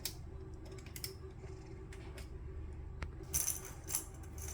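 Plastic magnetic toy pieces clicking and clattering lightly as they are handled, with a short run of taps about three seconds in.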